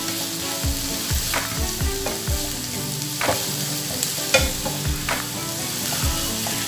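Sliced onions with ginger and garlic sizzling in coconut oil in a non-stick pan as they sauté. A wooden spatula stirs them, knocking and scraping against the pan about every half second.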